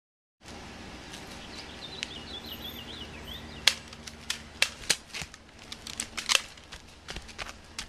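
Airsoft guns firing in a backyard exchange: about a dozen sharp, irregular pops in the second half. A bird chirps briefly just before the shooting starts.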